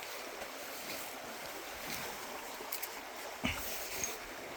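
River water flowing in a steady rush, with a single short thump about three and a half seconds in.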